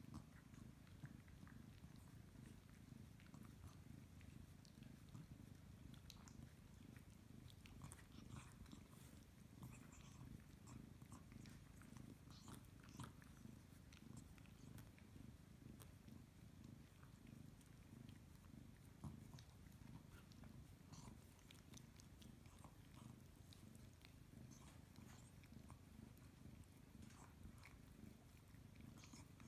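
Tabby kitten purring faintly and steadily, with scattered soft wet clicks of a dog licking its fur.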